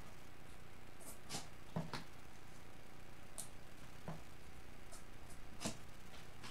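Card stock and paper strips being handled and laid down on a craft table: a few short, scattered taps and clicks over a steady low hum.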